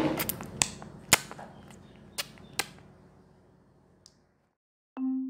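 Several sharp clicks and snaps, irregularly spaced, over a background that fades away to silence. Near the end, marimba-like music begins.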